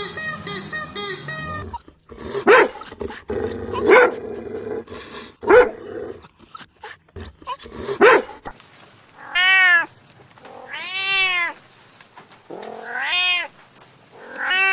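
A domestic cat calling: four short, sharp cries about a second and a half apart, then a run of long meows, each rising and then falling in pitch. The tail of a strummed guitar music track is heard at the very start.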